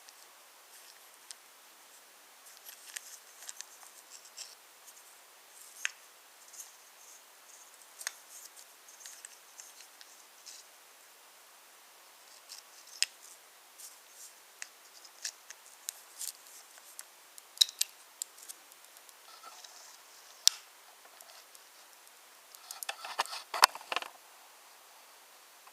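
Wooden toy trains and wooden track clicking and clacking irregularly, with a denser burst of clatter near the end.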